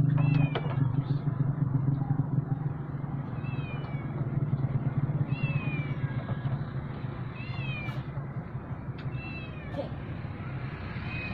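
A cat meowing repeatedly, about six short high-pitched meows roughly every two seconds, each rising and then falling in pitch. Underneath runs a low steady drone that slowly fades.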